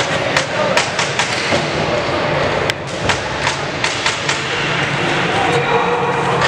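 Floor hockey sticks clacking against the ball and the court floor: a run of sharp, irregular knocks during play.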